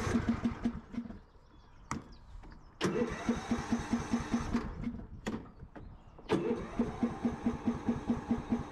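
Lawn tractor's electric starter cranking the engine in three tries, with the engine chugging over at about five pulses a second but not catching, and short clicks between tries. The warm engine has just stalled and is slow to restart.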